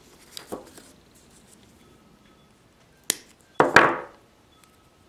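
A small paper cup holding wooden toothpicks being handled and set down on a tabletop: a few light ticks, then a sharp tap about three seconds in and a brief clatter of the toothpicks half a second later.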